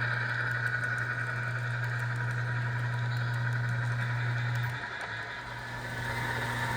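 Model diesel locomotive's DCC sound decoder playing a steady diesel engine running sound through its small onboard speaker. The sound dips briefly about five seconds in, then comes back.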